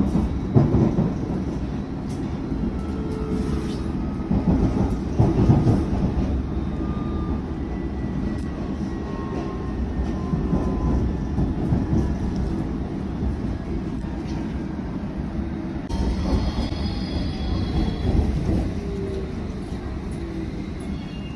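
London Underground S Stock train running between stations, heard from inside the carriage: a steady rumble of wheels on track, with faint whining tones that glide in pitch. From about two-thirds of the way in, higher whining tones join and slowly fall as the train slows into the station.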